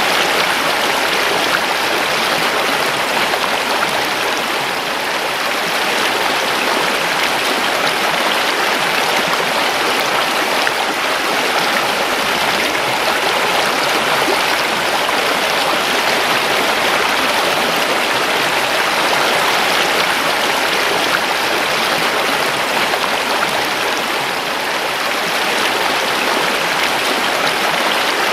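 River water rushing and splashing over rocks in a steady, continuous flow.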